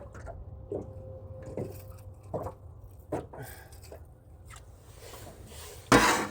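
Handling noises in a fishing boat: scattered light knocks and thuds over a low steady rumble, then one short loud rushing burst near the end.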